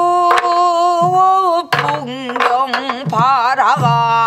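A woman sings in Korean pansori style, holding a long note and then bending it in wide wavering turns. A sori-buk barrel drum marks the rhythm with a few sharp stick strokes and low booms.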